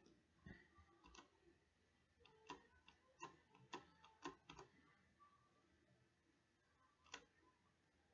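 Faint, irregular computer mouse clicks over near silence, about eight in all, most of them bunched in the middle and a last one near the end.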